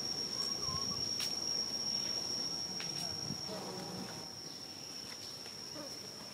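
Insects droning in one steady high-pitched note, with a few faint sharp clicks.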